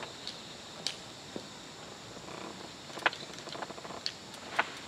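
Steady faint chirring of autumn crickets, with a few scattered light ticks and clicks.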